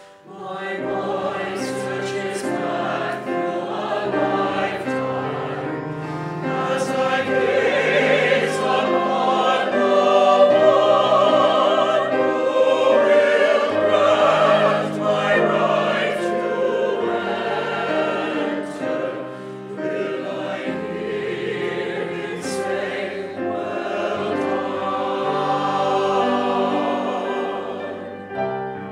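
Mixed church choir singing a sacred anthem in parts, held notes over steady low accompaniment; it comes in just after the start and swells louder in the middle.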